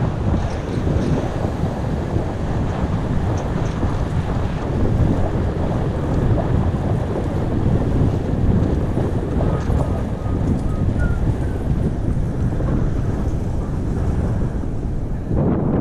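Wind buffeting the microphone of a helmet-mounted action camera on a moving bicycle: a steady, heavy low rumble of rushing air.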